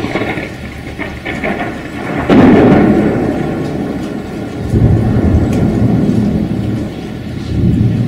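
Thunder in a rainstorm over steady rain: a sharp crack at the start, then a loud rolling peal about two seconds in that swells up twice more.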